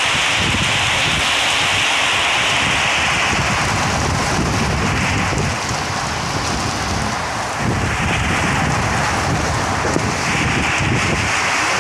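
Heavy rain pouring down in a strong, gusting wind, with the wind buffeting the microphone in low rumbling gusts.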